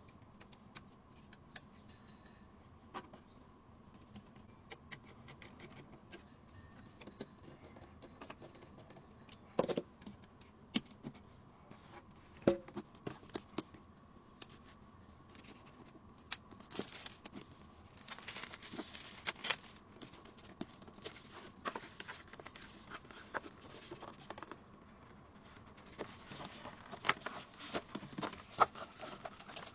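Scattered light clicks, taps and small rattles of computer parts being handled and fitted during a PC assembly, with a few sharper knocks and a brief rustle a little past the middle.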